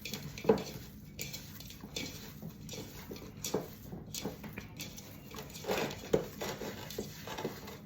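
Ground chicken and spices being mixed together in a bowl: irregular soft squishing and occasional knocks against the bowl.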